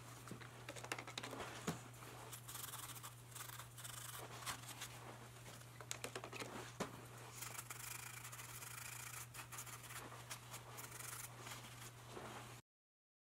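Hands working on a cast-iron table saw top: scratching and rubbing with small clicks and a few sharper ticks of metal parts, while a spray bottle is squirted over the casting, over a steady low hum. The sound cuts off suddenly near the end.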